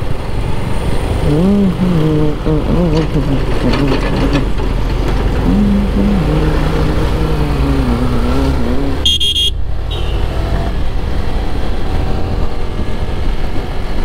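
Motorcycle riding on a highway: steady wind rumble on the microphone and engine and traffic noise. A vehicle horn honks briefly about nine seconds in.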